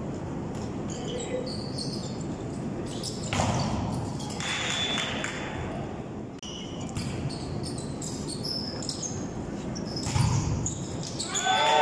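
Indoor volleyball game sounds in a large hall: the ball striking hands and floor, with a couple of louder thuds about three and a half and ten seconds in, over a steady hall din.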